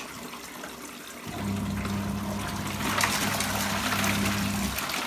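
Water running into the wash tub of a Costway mini twin-tub washing machine. About a second in, the wash motor starts with a steady low hum and the water churns in the tub; it stops shortly before the end.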